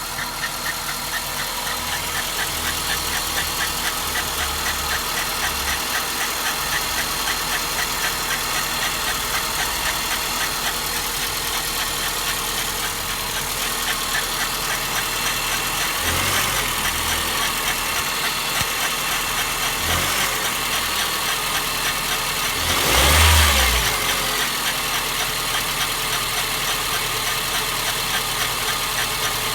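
Honda Fit Aria (GD8) engine idling with an abnormal noise from around the fan (accessory drive) belt: a fast repeating high tick runs over the idle. The throttle is blipped briefly about 16 and 20 seconds in, and revved harder near 23 seconds, which is the loudest moment.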